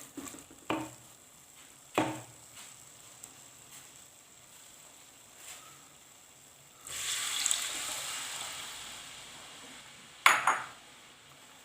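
A few utensil knocks against a cooking pan. Then, about seven seconds in, a sudden sizzling hiss that fades over a few seconds as kudampuli (Malabar tamarind) water hits the hot, oil-fried masala. A sharp knock near the end.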